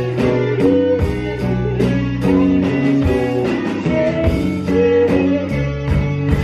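Live band music: an electric guitar plays held, changing chords over a steady beat.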